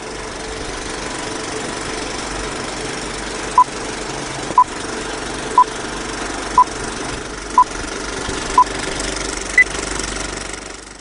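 A steady machine-like noise with a low hum, over which short electronic beeps count down once a second: six at the same pitch, then a seventh at a higher pitch.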